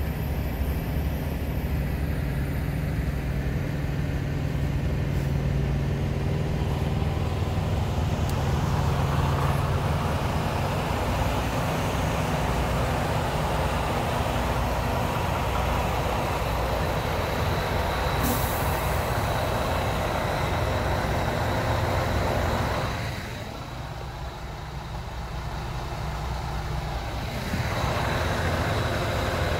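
Steady low drone of idling diesel semi-truck engines, fading for a few seconds near the end and then coming back. About two-thirds through there is a brief high hiss.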